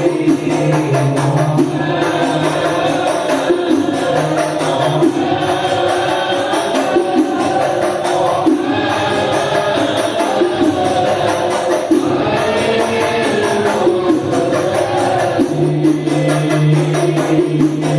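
Shalawat devotional song with group chanting over hadroh frame drums (rebana) beating a steady rhythm. A low held bass tone sounds at the start and returns near the end.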